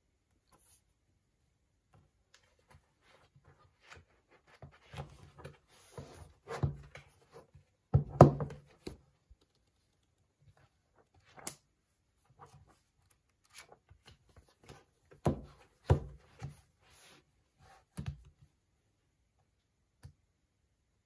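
A paperback book being handled on a desk: pages flipping and rustling, with soft knocks of the book against the desktop, the loudest about eight seconds in and a few more later.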